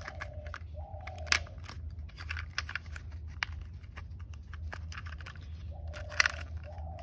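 Cheap plastic toy fire truck parts being pressed and snapped together by hand: a run of small clicks and taps, the sharpest about a second in. There are a few short squeaks of plastic rubbing on plastic.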